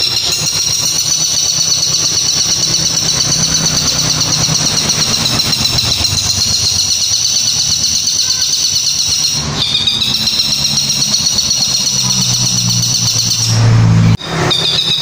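Long-tailed shrike (cendet) singing a long, rapid high-pitched trill, unbroken for about nine and a half seconds, then again after a short break until another break near the end. The uploader cannot tell whether this call is the 'kuntilanak' type or a tengkek buto (kingfisher) imitation. A low steady hum runs underneath and grows louder just before the second break.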